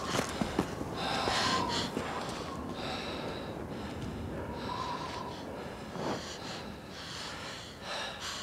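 A man and a boy breathing hard: a run of loud, hissing breaths, about one a second, as they are out of breath.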